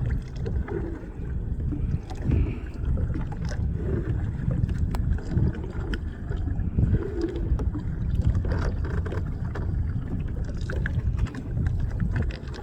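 A fishing boat's engine running, a low uneven rumble with wind and water noise on the microphone.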